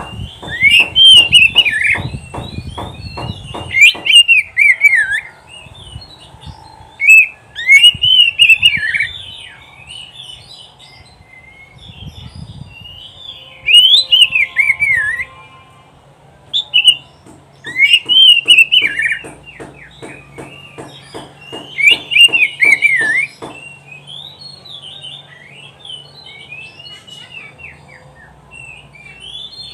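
Oriental magpie-robin singing: loud whistled phrases that sweep up and down and fall away, given in bouts every few seconds with quieter phrases between. A fast ticking runs under some of the phrases at the start and again about two-thirds of the way in.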